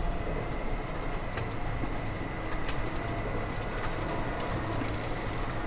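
Steady factory machinery noise: a low rumble with a thin high steady tone and scattered light clicks.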